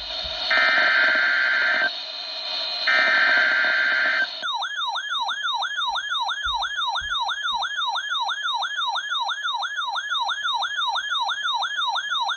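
Two bursts of NOAA Weather Radio SAME header data tones, a harsh digital screech over the radio's hiss, each about a second and a half long with a short gap between. About four seconds in, a weather alert receiver's electronic siren alarm sets off: a rapid wailing warble of about three sweeps a second that keeps going.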